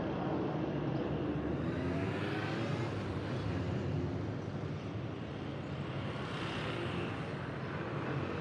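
Street traffic running steadily, with a vehicle engine rising in pitch about two seconds in.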